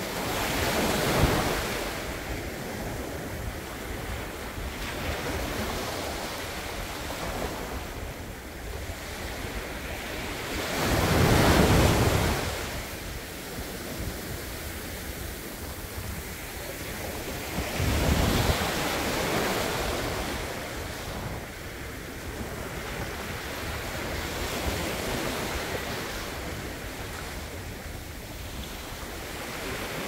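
Small sea waves breaking on a sandy beach and washing up the shore, a steady hiss of surf with louder crashes swelling in about a second in, near the middle (the loudest) and again about two-thirds of the way through.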